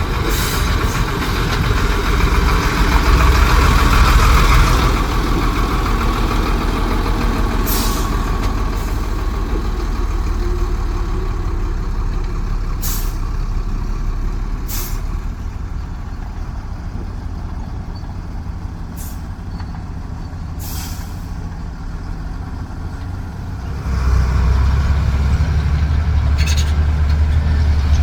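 Heavy dump truck's diesel engine running, louder about 3–4 seconds in and again stepping up sharply near the end, with six short air hisses from its air brakes spaced through the middle and end.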